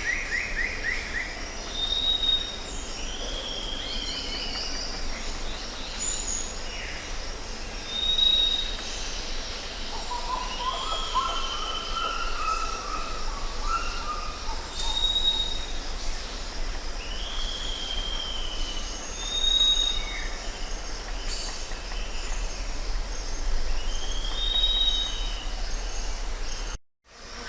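Jungle ambience: several birds calling over a steady, pulsing insect drone. A short, high whistled note repeats every few seconds, mixed with downward-sliding calls and a rising-and-falling warble about ten seconds in. The sound cuts out briefly near the end.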